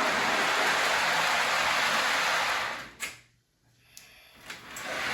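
Lionel model train running on the track with a steady rushing whir. It cuts out to near silence for about a second and a half around three seconds in, with a few faint clicks, then picks up again near the end.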